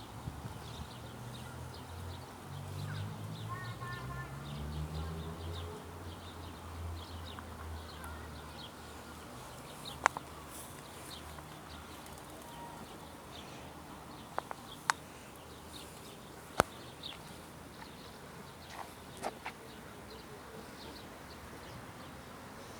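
Outdoor ambience with small birds chirping faintly throughout. A low hum runs through the first several seconds, and there are a few sharp clicks later on.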